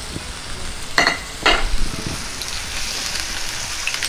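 Clams in their shells tipped from a glass bowl into a hot pan of frying masala, clattering twice about a second in and half a second later, then sizzling steadily as they are stirred with a wooden spatula.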